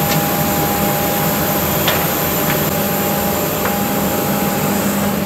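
Steady machinery drone of a parked airliner heard at its open forward cabin door: a low hum and a steady whine over a constant rush of air, with a few light clicks near the middle.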